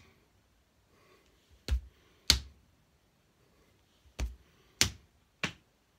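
Hands tapping and slapping parts of the body while the song's actions are done without words: five short, sharp pats, some with a dull thump, falling in an uneven rhythm about half a second to two seconds apart.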